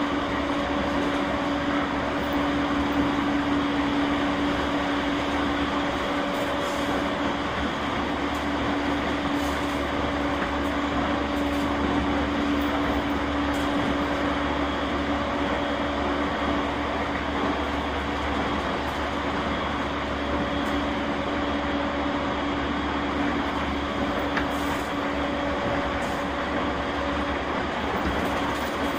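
Running noise of an E231 series 1000-number suburban electric train with renewed traction equipment, heard from inside the car: a continuous rumble of wheels on rail with a steady hum holding one pitch.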